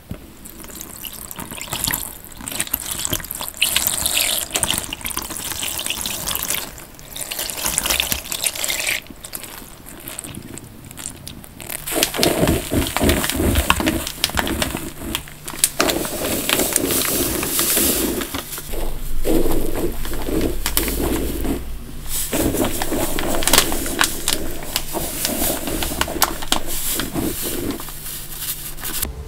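Wet, soapy sponges squeezed by hand over and over, squelching and crackling as the cleaning liquid and suds run out. The sound is lighter and hissier at first. From about twelve seconds in come heavier, repeated squelches.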